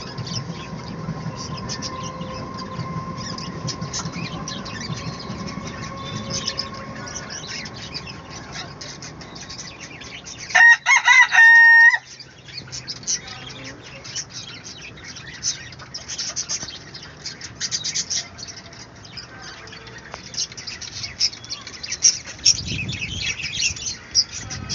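Flock of Indian country chickens clucking and chirping throughout, with one loud rooster crow about ten seconds in, lasting roughly a second and a half.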